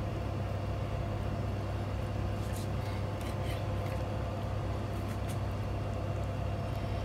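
A steady low hum, with a few faint clicks of a knife on a cutting board as meat is cut.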